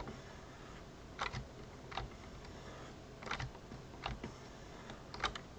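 Computer keyboard keys pressed one at a time, about six separate clicks spread out with pauses between them.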